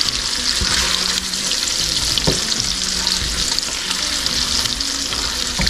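Kielbasa and bacon sizzling in hot grease in an electric skillet, with a few clicks of a plastic slotted spoon against the pan as pieces are scooped out.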